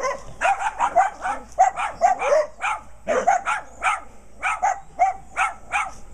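Dogs barking hard and fast at a chain-link fence, about four barks a second, stopping just before the end: fence fighting with dogs on the other side.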